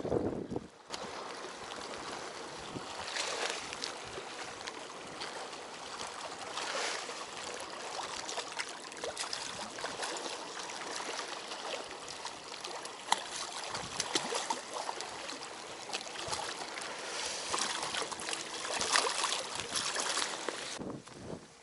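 Steady rush of flowing, splashing water with scattered small clicks, cutting off suddenly near the end.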